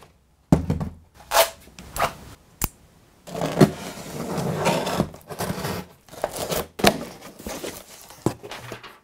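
Irregular handling noises: rustling and scraping with several sharp knocks, and a longer stretch of rustling in the middle.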